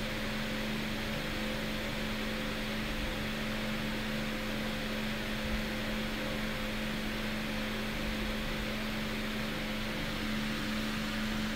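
Steady low hum with a constant hiss, of the kind a fan or running appliance makes.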